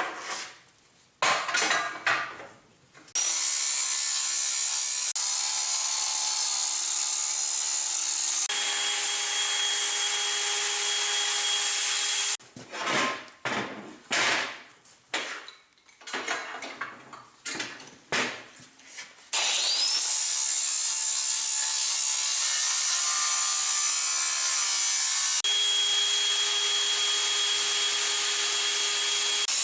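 Power tool cutting steel plate: a steady cutting noise with a faint whine, broken in the middle by a run of short separate passes, with a few short strokes at the start.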